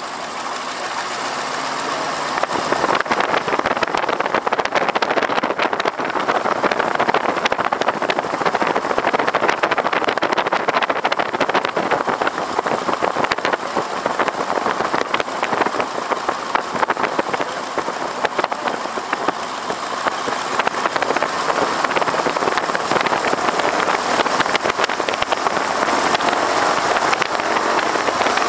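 Stearman biplane's radial engine running hard, heard from the open cockpit with wind rushing past. The sound swells over the first three seconds and then stays steady and loud.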